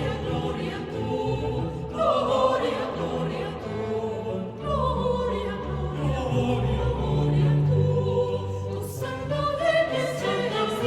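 A choir singing with an orchestra, a sacred piece of Bolivian mission music over sustained low string notes. Fuller sung phrases come in about two seconds in and again near five seconds.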